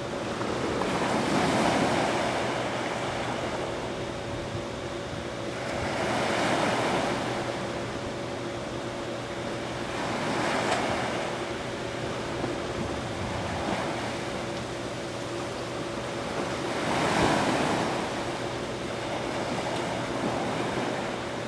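Small surf breaking on a sandy beach, the rush of water swelling and fading four times, about every four to five seconds, over a faint steady hum.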